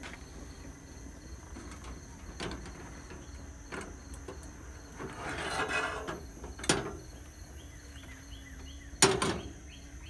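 A carbon steel skillet and a metal percolator being moved about on the steel grate of a Coleman camp stove: a few light knocks, a scraping slide around the middle, and a loud metal clank near the end.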